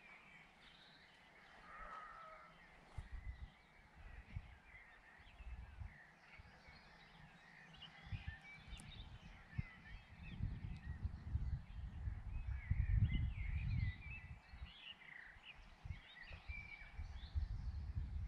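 Wind gusting against the microphone in uneven low rumbles that build after the first few seconds, with birds chirping and calling throughout.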